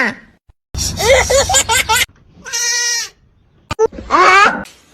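Goat bleating in several quavering calls, with one shorter steady call about halfway through.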